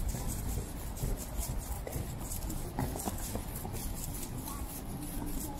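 Wet city street in the rain: footsteps clopping on wet pavement over a steady low rumble of traffic, with brief snatches of passers-by's voices.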